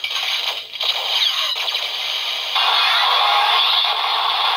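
Bandai DX A.I.M.S. Shotriser toy playing its Shooting Blast Fever finishing-attack sound effects: electronic warbling sweeps, then from about two and a half seconds in a sustained, loud noisy blast.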